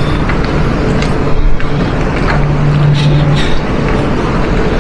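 Busy high-speed-rail platform beside a standing train: a steady low hum that swells and fades, with scattered clicks and knocks from passengers' footsteps and rolling suitcases.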